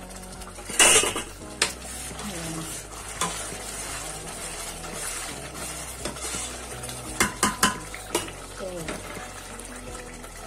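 Metal spoon stirring a simmering tomato sauce in a stainless steel pot, scraping and knocking against the pot, with a loud clank about a second in and a quick run of clinks around seven to eight seconds in.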